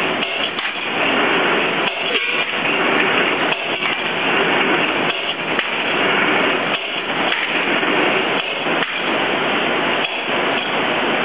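Vertical roller straightening machine running, metal rods rattling through its spinning rollers in a continuous metallic clatter that dips briefly about every second and a half.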